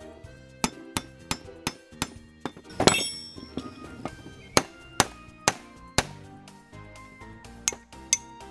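Claw hammer striking a rusty steel Stillson pipe wrench again and again, metal-on-metal clanks, with one louder ringing clang about three seconds in. The blows are knocking packed rust out of the seized jaw to free it up. Background music runs underneath.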